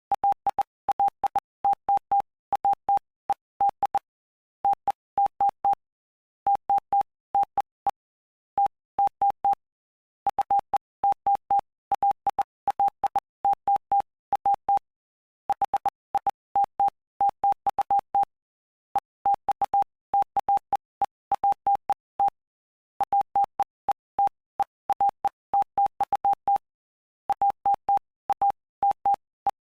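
Morse code sent as a single steady mid-pitched beep keyed on and off in dots and dashes, with a faint click at the start and end of each beep and short pauses between words. It spells out Bible text from the Gospel of Mark, chapter 5.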